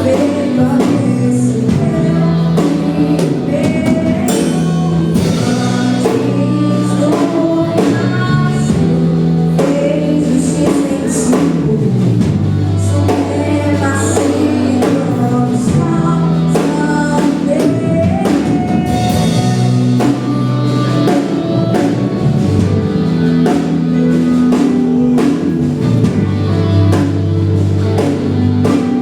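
Gospel worship song: voices singing over a band, with sustained bass notes and drums.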